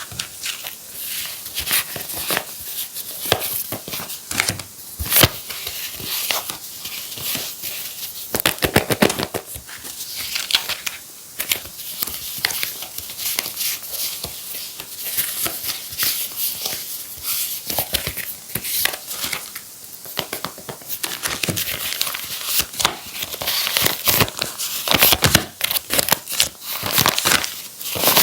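Paper crinkling, rustling and tearing under hands, with many small crackles and rips, as homemade paper craft 'plasters' are unwrapped and peeled open.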